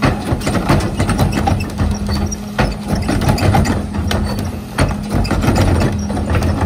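Heil rear-loader garbage truck on a Freightliner M2 chassis running, its cart tipper hydraulics working as a trash cart is lifted and dumped into the hopper. Its steady hum is broken by repeated clanks and knocks of the cart and falling trash, with a loud knock right at the start.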